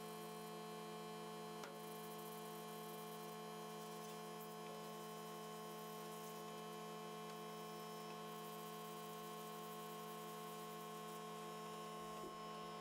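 A steady, even hum holding several fixed pitches, unchanging throughout.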